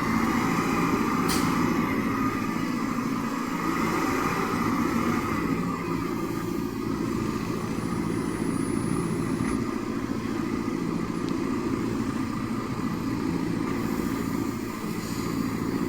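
Semi truck diesel engine running steadily with a low, even drone.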